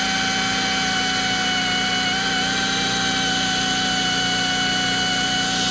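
Half-inch pneumatic drill running with a steady whine as it bores through an aluminum block. The Fortress 5-gallon air compressor's pump runs underneath as a steady low hum.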